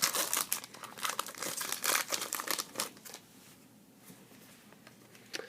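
Crinkling and rustling of trading-card pack wrappers while cards are handled, dense for about three seconds, then dropping to faint handling sounds.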